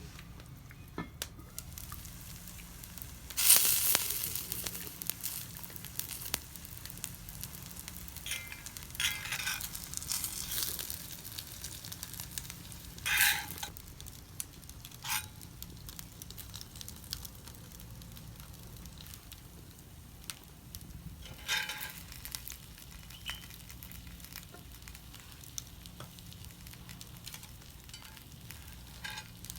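Chijimi pancake frying in an oiled pan over a wood fire, sizzling steadily with many small crackles. There are several louder bursts of sizzle, the strongest a few seconds in and others about halfway through and around two-thirds of the way.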